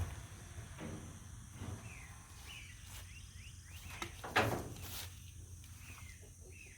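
Cornish Cross chicks giving short, high peeps now and then, with a brief knock or rustle about four and a half seconds in.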